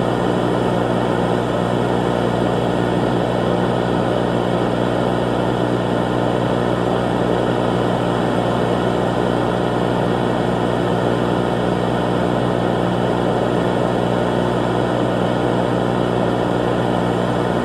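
A loud, steady, unchanging drone like a running engine, with a constant hum that never varies.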